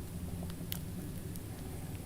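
Steady low background rumble with a few faint short clicks, in a pause between crunchy bites.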